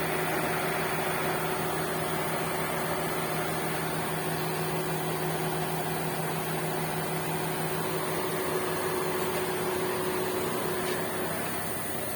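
Car air-conditioning system running, a steady mechanical hum with a held tone that fades out near the end.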